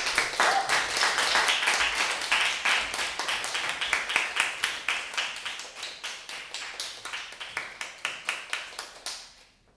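Audience applause, many hands clapping, thinning out to scattered claps and stopping shortly before the end.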